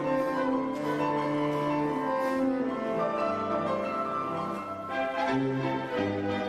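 Instrumental ensemble playing a classical piece live: held melodic notes over a bass line that moves from long held notes to shorter steps, with a few sharp strokes in the first couple of seconds.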